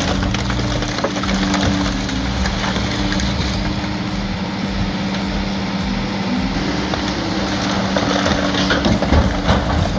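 Heavy crushing machine running: a steady drone from its engine and hydraulics, with irregular crunching and crackling of material being crushed, more of it near the end.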